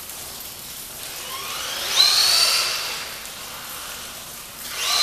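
Brushless electric motor of a 2S RC truck whining as it accelerates: the pitch rises to a peak about two seconds in, then fades as the truck runs off. A second rising whine comes near the end. Under it is a steady hiss of rain.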